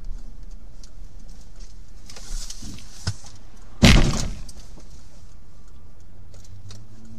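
Car collision heard from inside one of the cars: one sudden loud crash about four seconds in, dying away within about half a second, over the car's steady engine and road hum.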